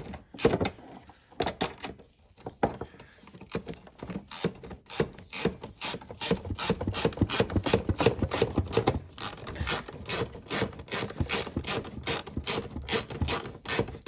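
Koken 3726Z-280 72-tooth flex-head ratchet clicking in repeated strokes as it drives in a bolt still loose in its thread; the pawl clicks on each back-swing without dragging the bolt back, a sign of low back drag.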